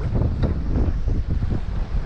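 Strong, gusty wind buffeting the microphone: an uneven low rumble, with the wind blowing a steady 15 to 18 mph and gusting into the 20s.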